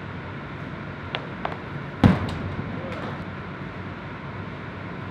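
A discus throw: two light shoe scuffs on the concrete throwing circle about a second in, then one loud, sharp thud about two seconds in as the discus strikes the cage's hanging backstop. A steady low hum runs underneath.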